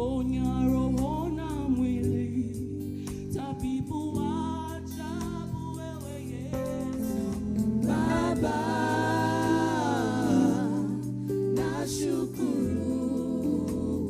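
Gospel choir singing over sustained instrumental backing, with a long held note about eight seconds in.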